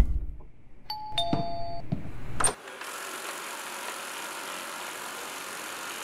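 A two-note electronic chime, a higher note then a lower one, sounds about a second in, with a few soft clicks around it. A steady hiss follows from about halfway.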